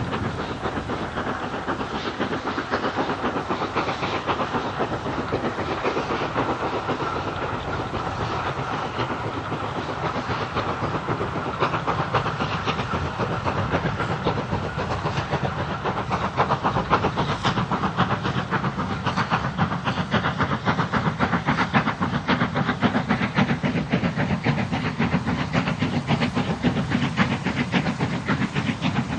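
Steam locomotive working hard as it hauls a passenger train, its fast, even exhaust beats running over the rumble of the coaches on the rails.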